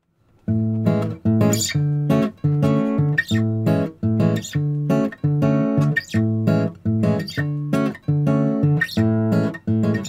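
Background music: bossa nova acoustic guitar strumming chords in a steady rhythm, starting about half a second in after a brief gap.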